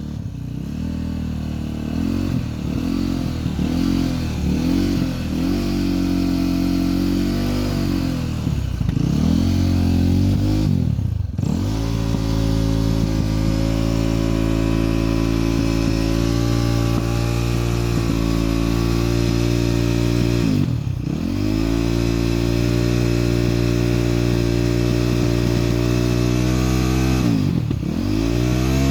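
KTM 530 EXC single-cylinder four-stroke enduro engine running: a few quick throttle blips, then held at steady revs. The revs dip sharply and climb back three times: about a third of the way in, about two-thirds in, and near the end.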